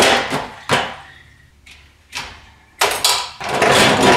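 Grill parts and a wire dishwasher rack clattering as the dishwasher is loaded: a few separate knocks, then a longer rattle near the end as the lower rack is pushed in.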